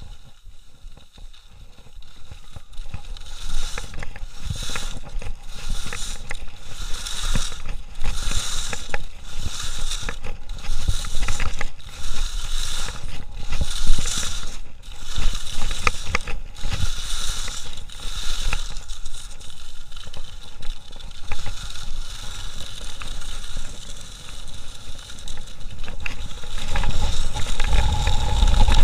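Ski edges carving turns on a hard-packed slope: rhythmic scraping about once a second, then a smoother hiss of running skis. A low wind rumble on the microphone grows near the end as the skier runs straight.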